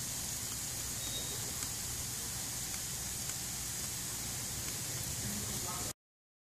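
Automated spray misters of an indoor living wall hissing steadily as they spray a fine water mist over the plants, with a faint low hum beneath; the sound cuts off abruptly near the end.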